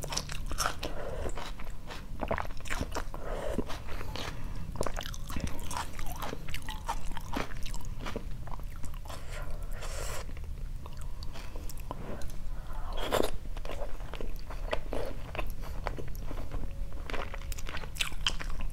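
Close-up chewing and crunching of a mouthful of pho with raw bean sprouts and herbs, wet and crisp, with many short sharp clicks of chopsticks and a metal spoon against a glass bowl scattered throughout.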